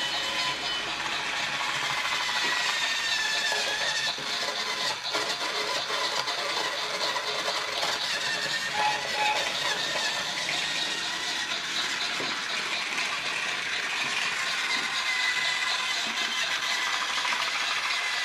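Battery-powered TrackMaster Spencer toy engine running along plastic track: a steady motor whir with the rattle of its wheels and tender on the track.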